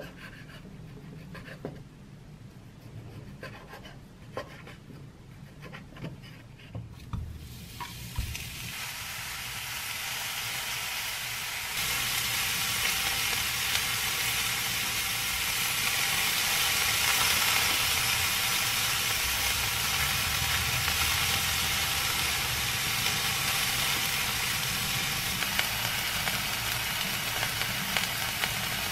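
A kitchen knife cutting raw beef on a wooden cutting board, with a few sharp taps of the blade on the board in the first seconds. Then cubes of beef sizzling in a hot nonstick frying pan: the sizzle builds from about eight seconds in and is steady and louder from about twelve seconds on.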